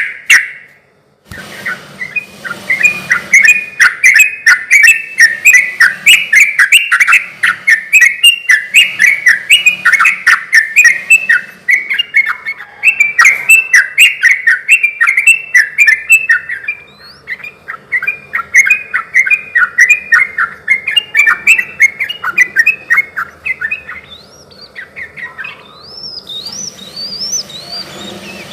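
Yellow-vented bulbul (trucukan) singing a long, fast string of short chirping notes, with brief breaks. Near the end the song gives way to fainter, higher rising whistles.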